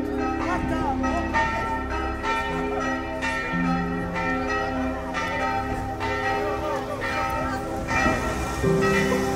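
Church bells ringing a peal, struck about twice a second, the tones of several bells overlapping and ringing on.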